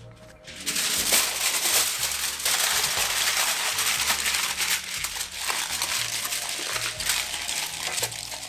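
Pastry brush scratching garlic butter across pita bread, a continuous rough, crinkly brushing.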